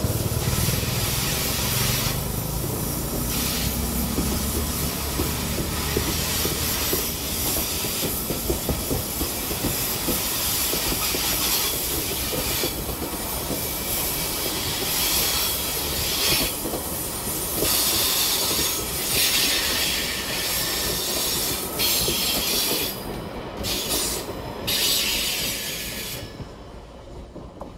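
Passenger train carriages rolling past on steel rails as the train pulls out. Their steel wheels give a steady rushing rumble with a high hiss that comes and goes. The noise drops away suddenly near the end as the last car clears.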